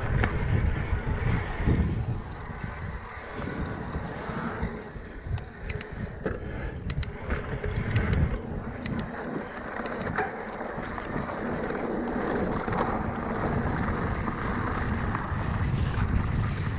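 Cannondale Moterra 2 electric mountain bike riding a dirt trail: tyres rolling over the ground, with wind buffeting the action camera's microphone throughout. Sharp clicks and rattles from the bike over bumps come in a run in the middle.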